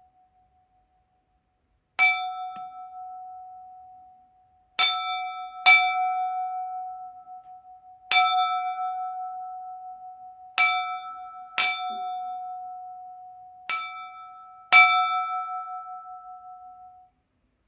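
A crystal glass tapped eight times at uneven intervals, each tap ringing out at one clear pitch with higher overtones and wavering as it fades.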